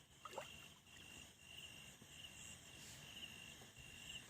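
Faint night insect chorus, crickets chirping in short repeated trills.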